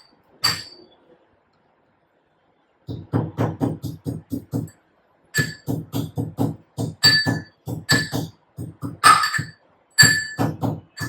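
Background music: after a single short hit about half a second in, a run of short, evenly spaced notes in repeating phrases begins about three seconds in.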